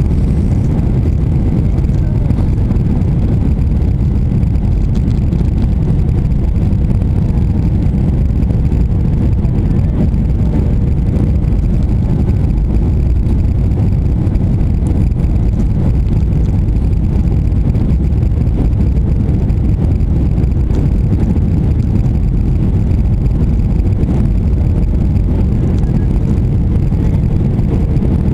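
Steady jet airliner cabin noise during descent, from the engines and rushing air, heard inside the cabin over the wing. It is a loud, even low rumble with a faint steady hum and no change.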